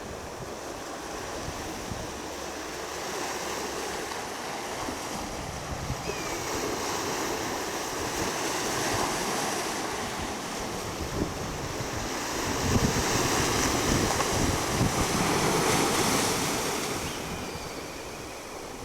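Sea waves washing on the shore, with wind on the microphone. The surf swells to its loudest about two-thirds of the way through, then eases.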